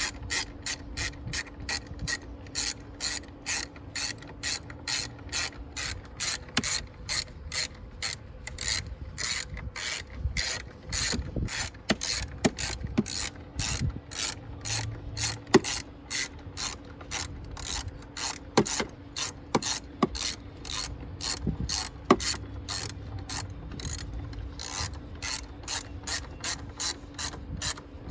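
Socket ratchet clicking steadily, about two to three clicks a second, as the battery hold-down bolt is tightened, with a few louder clicks in the middle.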